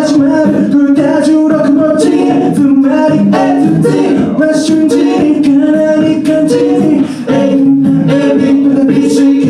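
A cappella vocal group singing in close multi-part harmony, with vocal percussion keeping a steady beat.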